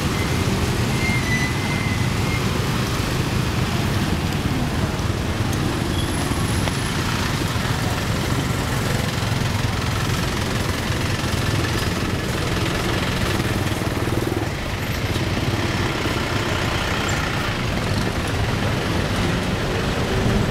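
Steady street traffic close by: motor scooters and cars passing with their engines running, a continuous low rumble with no sharp events.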